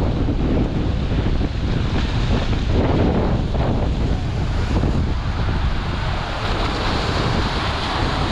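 Strong gusty wind from the approaching Hurricane Idalia buffeting the microphone with a constant low rumble, over the wash of rough surf.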